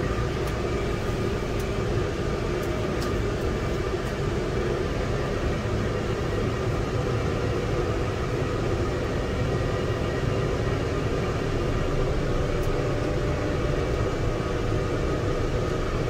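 Steady cab noise of a Fendt 720 tractor on the move: the engine and drivetrain humming under the HVAC heater fan running full bore.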